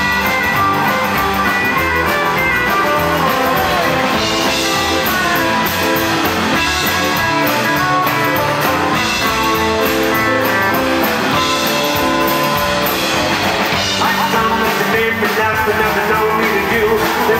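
A live rockabilly band plays an instrumental break, led by a Telecaster-style electric guitar over acoustic rhythm guitar, upright bass, keyboard and drums.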